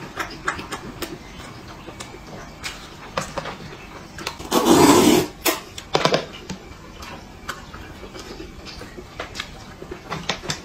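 Eating sounds from a man eating spicy soup with chopsticks: small mouth smacks and clicks, with one loud breathy slurp lasting nearly a second about four and a half seconds in and a couple of shorter ones after it.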